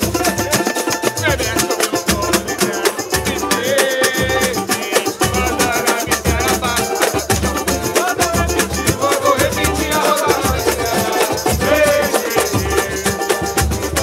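Live samba played on pandeiros, a hand drum and a banjo-cavaquinho: a steady, fast rhythmic beat with jingling frame drums and strummed strings.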